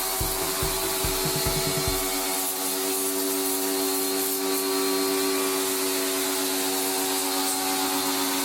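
Pressure washer gun spraying a jet of water into a window air conditioner, washing the dust out of its coils: a steady hiss over the hum of the washer's motor.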